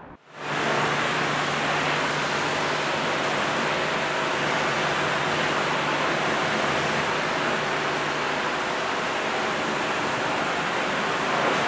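High-pressure car-wash sprayer jetting water: a steady hiss of spray over a low, even motor hum, cutting in abruptly.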